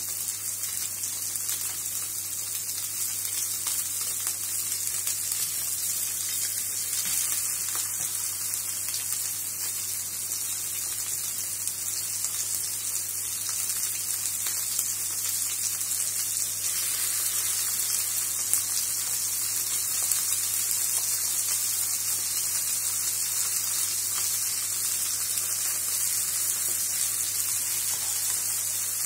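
Egg-dipped pollock fillet pieces frying in sunflower oil in a hot frying pan: a steady sizzle that grows a little louder about two-thirds of the way in as more pieces go into the pan.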